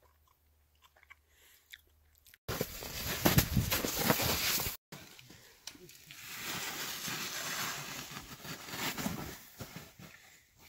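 Near silence for the first couple of seconds, then footsteps crunching in snow, irregular and loud, with a short break partway through.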